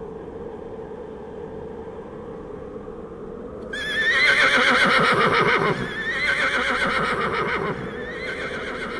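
A horse whinnying: a loud, long, quavering call breaks in about four seconds in and falls away, followed by a second, shorter whinny. Before it there is only a faint steady background.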